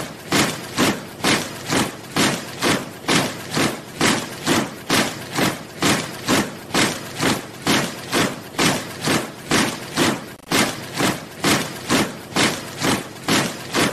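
Soldiers marching in step, their boots striking the ground together in a steady, even rhythm of about two footfalls a second.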